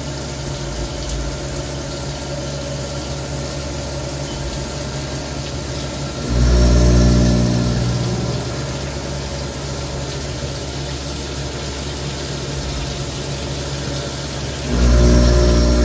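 A Haas Minimill HE CNC vertical machining center running a machining cycle with flood coolant spraying: a steady mechanical hum. Two louder surges of about two seconds each come about six seconds in and again near the end.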